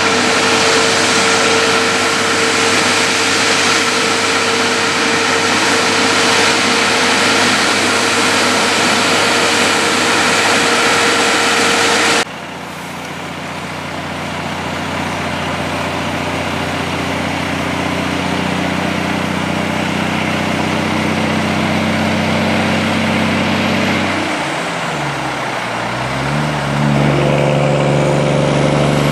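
Heavy diesel trucks: a prime mover hauling an oversize load runs past loudly and steadily, then after an abrupt change queued road-train trucks idle, with an engine revving up near the end.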